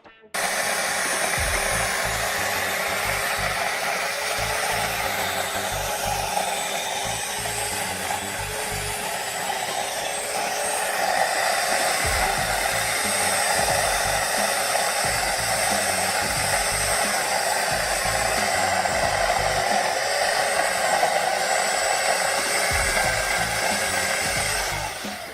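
Portland 14-inch electric chainsaw's motor and chain running steadily, a whirring whine with a slightly wavering pitch that starts suddenly and stops near the end.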